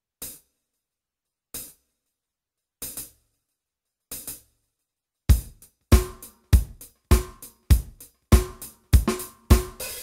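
Korg M50 synthesizer's Studio Standard Kit drum program played from the keys: four separate drum hits spread over the first few seconds, then, about five seconds in, a steady beat of bass drum and snare, a little over one and a half hits a second.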